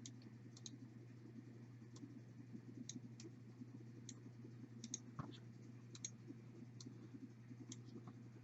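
Computer mouse clicking faintly, a dozen or so scattered clicks, some single and some in quick doubles, over a steady low hum.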